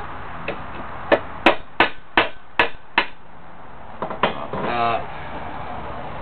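Hammer tapping a lead assay prill to knock the litharge off it and split it. A light tap comes first, then six sharp taps in a steady rhythm, two more about four seconds in, then a short scraping rattle.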